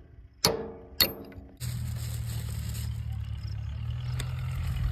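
Two ringing metal strikes, a hammer on a steel drift driving at a stuck, broken front wheel bearing on a tractor's axle spindle. About one and a half seconds in, the hammering gives way to the steady low hum of an engine idling.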